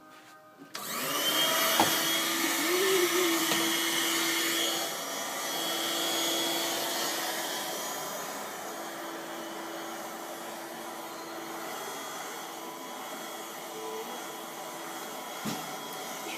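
A vacuum cleaner starts up under a second in and runs steadily with a hum and a high whine. It is loudest for the first few seconds, then settles a little quieter. A couple of sharp knocks sound, one shortly after it starts and one near the end.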